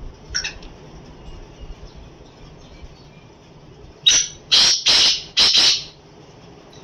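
Black francolin calling: a short faint note just after the start, then, a little past halfway, a loud harsh call of four quick notes lasting under two seconds.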